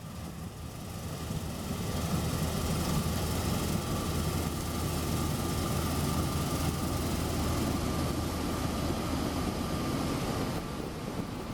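Heavy diesel farm machinery running steadily under load, a deep engine drone with a thin, constant whine above it. It swells over the first two seconds and eases slightly near the end.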